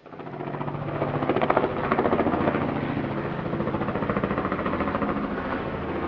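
Small helicopter flying overhead, its rotor beating fast and evenly over a steady engine hum. The sound cuts in suddenly and swells during the first second.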